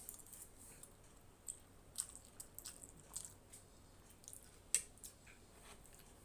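Close-miked mouth sounds of someone eating Maggi masala instant noodles: irregular wet smacks and clicks of chewing, the loudest a little under five seconds in.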